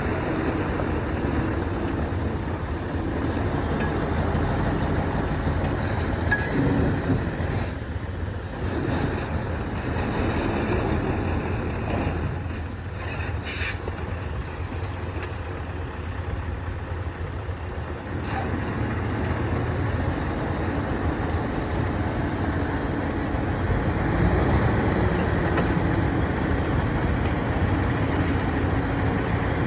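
Heavy diesel engine running steadily, its pitch shifting a little about six seconds in and again near the end, with a short sharp hiss about 13 seconds in.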